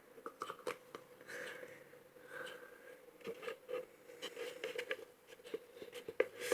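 Faint scattered clicks and light scrapes from handling a mixing bowl and utensil while making slime, over a faint steady hum.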